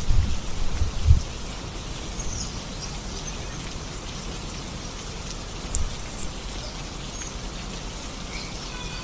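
Steady rain falling, an even hiss of drops, with low rumbling thumps in the first second and a few faint high chirps later on.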